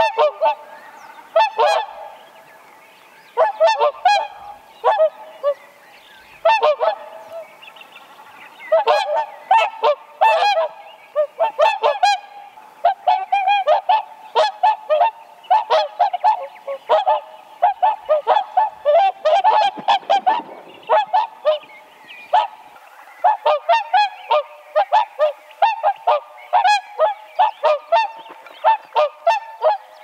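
A flock of whooper swans calling: many short calls from several birds overlapping one another, with brief lulls a few seconds in and again around seven seconds in.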